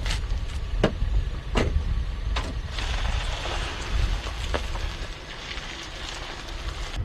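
Roadside outdoor sound: a steady low rumble of wind on the microphone and a vehicle running close by, with a hiss that swells and fades between about three and four seconds in. Five sharp clicks come through in the first five seconds, four of them in the first two and a half.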